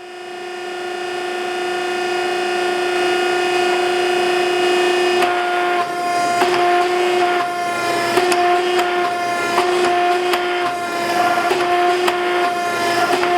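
Steady pitched whine of a forging press's hydraulic pump motor running. From about five seconds in it is joined by sharp metallic knocks, roughly two a second, as the steel is worked.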